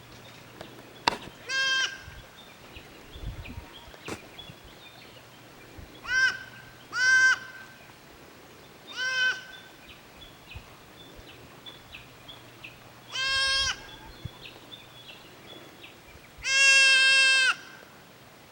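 Goats bleating: six separate wavering calls, most about half a second long, with a longer, louder one near the end.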